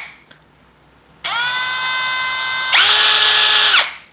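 Yasuka YID318 brushless cordless impact drill running free with no bit: its motor whine starts about a second in, jumps to a higher speed, and winds down to a stop near the end.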